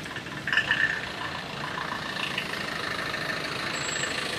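Slow road traffic: car engines running as a queue of vehicles creeps past in a jam. A brief, louder, sharper sound comes about half a second in.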